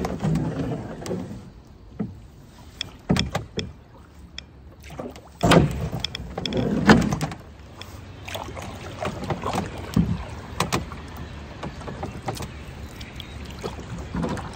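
Sounds of a canoe being poled and paddled: water swishing and splashing around the pole and paddle, with scattered sharp knocks. A louder rush of water comes around the middle.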